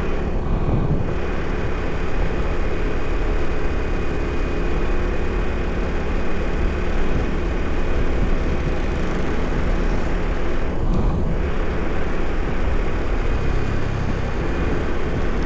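Steady road and wind noise while riding along a street, with a vehicle motor running underneath.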